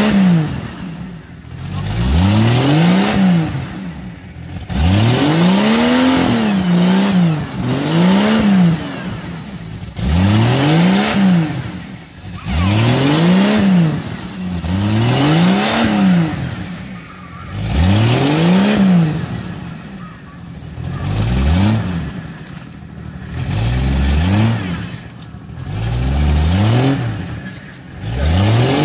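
A Jeep Cherokee XJ's engine is revved hard again and again, each rev climbing and then dropping off, about every two and a half seconds. The Jeep is stuck in a deep mud hole and is being driven hard to try to get out.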